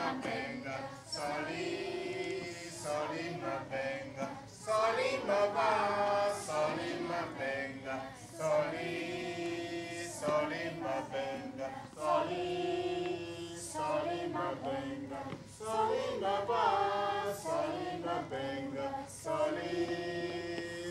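A group of children singing a chanted song together, with sharp claps keeping time every second or so.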